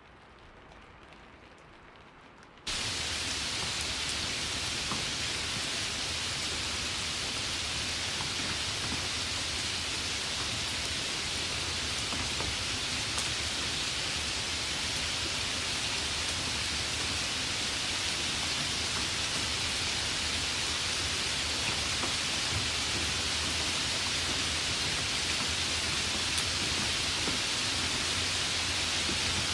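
Steady rain as a dense, even hiss. It is faint at first, then about three seconds in it cuts abruptly to a much louder, unchanging downpour.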